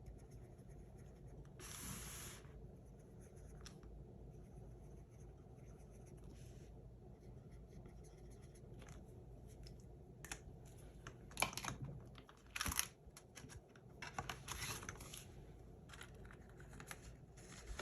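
Paper banknotes and cash envelopes being handled: a brief rustle about two seconds in, then scattered light clicks and short rustles in the second half.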